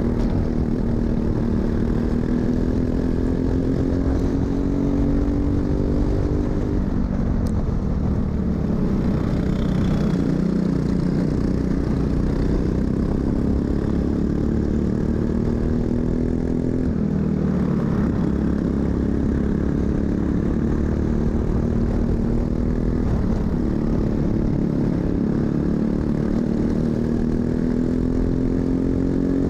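Racing kart engine heard from the driver's seat at speed, its pitch climbing steadily along each straight and dropping sharply when the throttle is lifted for a corner, about 7 and 17 seconds in and again at the end.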